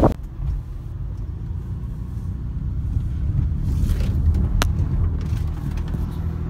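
Low, steady rumble of a Saturn car driving, heard from inside the cabin, with a single sharp click about four and a half seconds in.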